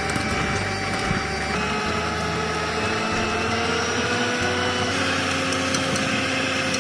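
Electric hand mixer running steadily, its wire beaters churning cottage cheese, sugar and egg in a glass bowl. The motor whine holds several steady tones whose pitch shifts slightly a couple of times as the load changes.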